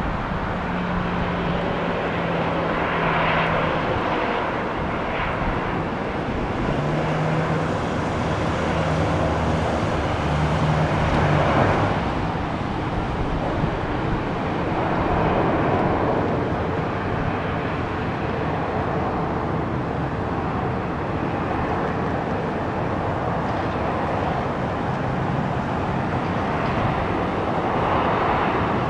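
Boeing 737-700 jet airliner's CFM56 engines running as a steady rush of noise that swells and eases several times.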